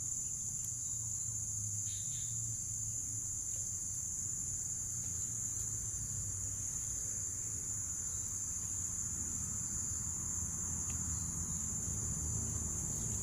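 Steady, shrill chorus of insects, crickets or similar, a continuous high-pitched drone with no breaks, over a low rumble.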